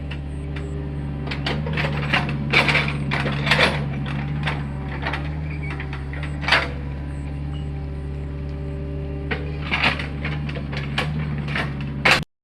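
Hitachi excavator's diesel engine running steadily, with irregular knocks and clatter from the machine at work. The sound cuts off abruptly near the end.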